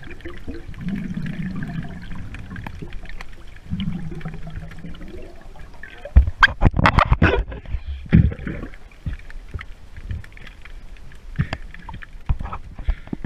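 Underwater recording of bubbles and water moving around the camera, with a few low drawn-out hums in the first five seconds. A loud cluster of sharp knocks and sloshing comes about six to eight seconds in, with scattered clicks after it.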